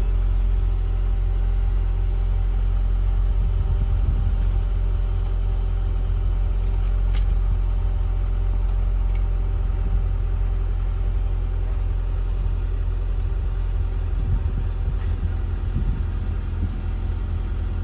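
Acura Integra's four-cylinder engine idling steadily, with a constant low hum.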